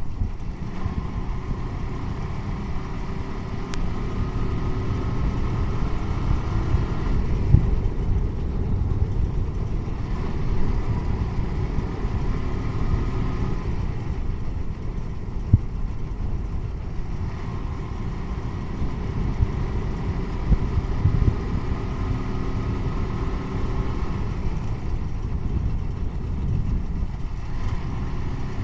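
Motorcycle engine running on the move, with a steady low rumble of wind and road noise; the engine note rises and falls a little with the throttle.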